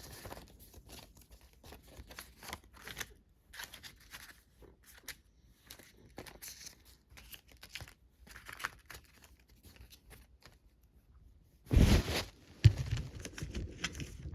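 Plastic disc case and packaging being handled: scattered short rustles and crinkles, then a louder knock and a sharp click near the end, followed by more handling noise.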